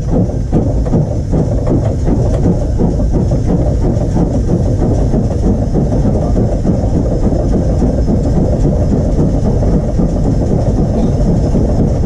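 Taff Vale Railway No.85, a steam 0-6-2 tank locomotive, working under steam at low speed, heard from the top of its boiler: a loud, steady rumble and clatter of exhaust and running gear.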